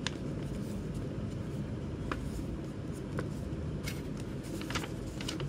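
A folded paper music-score insert being unfolded and handled, giving a few short crinkles and crackles. Under them runs a steady low background hum.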